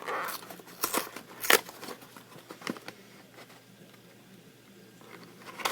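Small plastic toys and their packaging being handled: a few sharp clicks and knocks, the loudest about a second and a half in, over faint rustling and crinkling.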